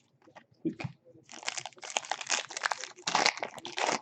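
Plastic trading-card wrapping being handled and crumpled: a dense, crackly crinkling that starts about a second in and grows louder near the end.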